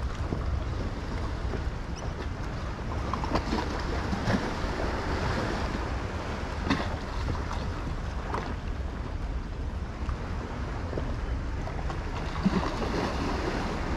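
Wind buffeting the microphone and water lapping around a small boat, with a few light knocks; the loudest comes near the end.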